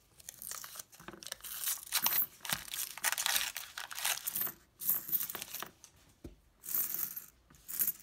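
Paper wrapper of a nickel roll being picked at and torn open, with crinkling paper. Near the end the nickels spill out and clink onto the mat.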